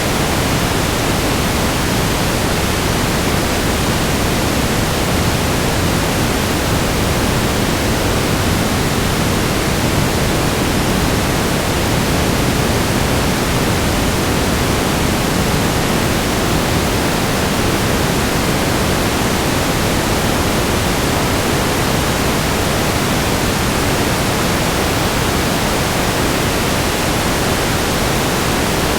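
Static noise: a loud, steady hiss that spreads evenly across all pitches and never changes.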